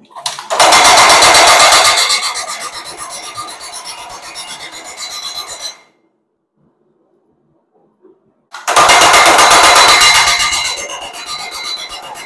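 Homemade compact power hammer, its belt-driven sledgehammer head pounding red-hot W2 steel on a railroad-rail anvil in a rapid, even run of blows, flattening a thick cleaver blank. There are two runs, each loudest at the start and then lighter, with about three seconds of silence between them.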